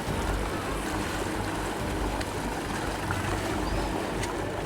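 Motorboat engine running steadily over rushing water and wind noise at sea, the tow boat pulling a banana boat.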